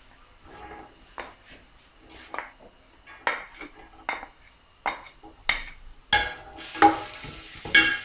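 A wooden spatula knocks and scrapes against a bowl and the pot as diced red onion is pushed into the cooking pot. It makes a run of sharp, separate knocks that grow louder toward the end.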